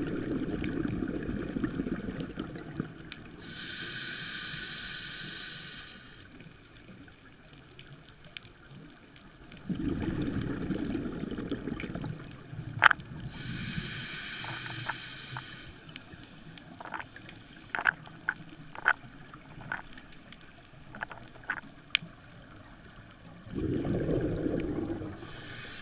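Scuba diver breathing through a regulator, heard underwater: three bouts of exhaled bubbles, two of them followed by the hiss of an inhale, in a slow cycle of about ten seconds. Scattered sharp clicks sound in between.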